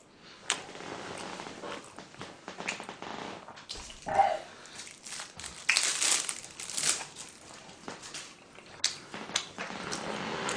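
Plastic crinkling and rustling with scattered light clicks, as a plastic cake knife is handled at the table; the rustles come in short bursts and are loudest about six to seven seconds in.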